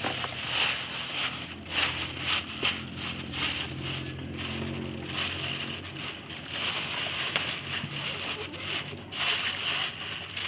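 Thin plastic bag crinkling and rustling in irregular bursts as hands pack small caught fish into it, over a steady low engine hum.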